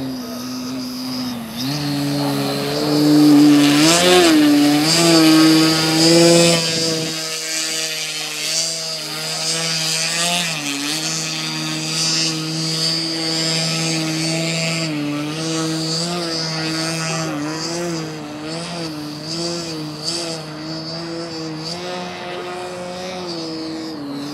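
Dualsky GA6000-8 electric outrunner motor driving the propeller of a large RC Extra 330SC, its buzzing pitch rising and falling as the throttle is worked to hold the plane in a prop hang. It is loudest a few seconds in, with a thin high whine running above it.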